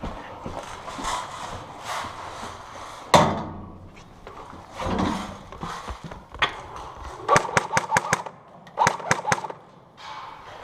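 Airsoft gun firing two short bursts of rapid, sharp cracks, about seven and nine seconds in, with a loud knock about three seconds in and scattered smaller knocks.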